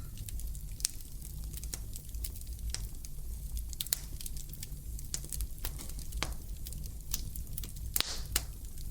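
Wood fire crackling in a fireplace: irregular sharp pops and snaps over a low steady rumble, with a couple of louder pops near the end.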